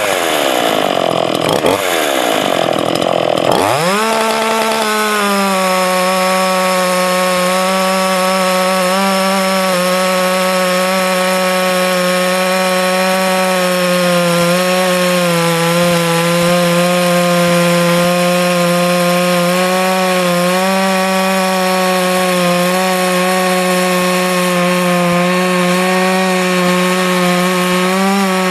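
Ported Dolmar 421 two-stroke chainsaw with 63PS Picco chisel chain on a 7-pin rim sprocket. Its pitch falls in a few sweeps, climbs sharply about four seconds in, then holds a steady high pitch while it saws through wood.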